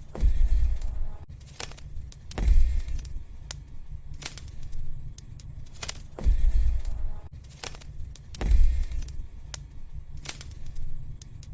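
Wood fire crackling with scattered sharp pops, over a low rumble that swells up loudly four times, every two to four seconds.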